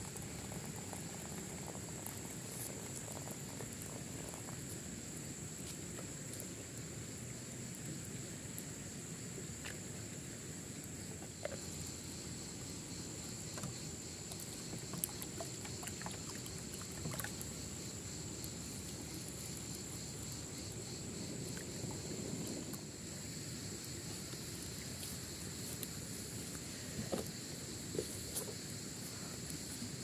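Insects trilling steadily in high, even pulses. A second, lower trill joins about a third of the way through. Underneath is a low steady rumble, with a few sharp clicks scattered through.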